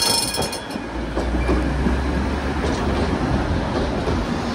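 Tatra tram running on the rails: a high whine that fades within the first second, then a low steady rumble with rail noise.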